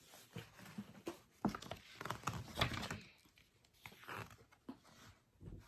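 Soft paper rustling and handling noises from a book being opened and its pages turned, with a few small knocks, the last few seconds nearly silent.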